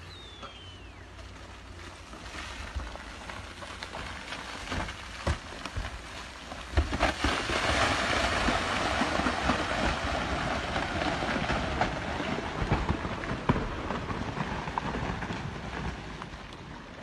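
Rockslide set loose by an excavator on a steep slope: rocks and boulders knocking and clattering as they fall. A few separate knocks at first build, about seven seconds in, into a dense continuous rush of tumbling rock that slowly dies down near the end.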